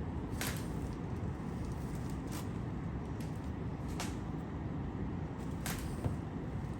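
Steady rumble of heavy rain on the house, with a few light clicks and taps spread through it.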